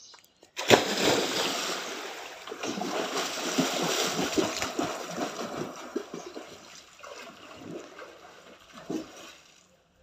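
A person jumping feet-first into a swimming pool: a loud splash of entry just under a second in, followed by continuous splashing and churning water as he swims. The splashing swells again a few seconds in and dies away near the end.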